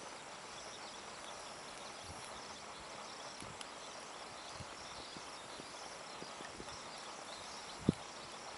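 Goats' hooves stepping on hard ground: scattered soft knocks over a steady outdoor hiss, with one louder thump near the end.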